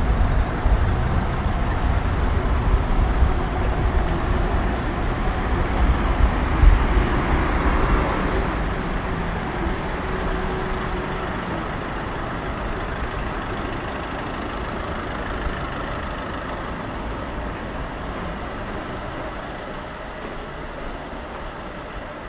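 Road traffic on a town street: cars and vans driving past close by with a low rumble, loudest about seven seconds in, then fading steadily to a quieter hum.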